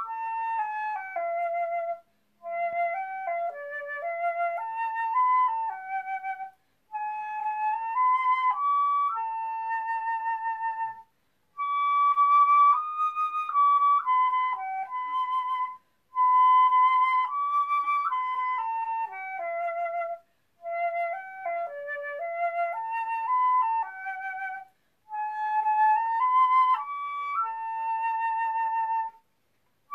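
Solo flute playing a slow hymn melody, one note at a time, in phrases of four to five seconds with short breaks for breath between them.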